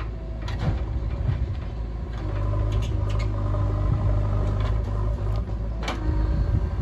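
Diesel engine of a JCB 3DX backhoe loader running steadily with a low rumble, with a few sharp knocks during the run.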